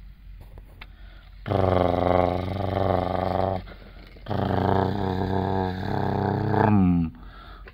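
A man's voice imitating a truck engine: two long drawn-out engine noises of about two seconds each, the second ending in a falling pitch.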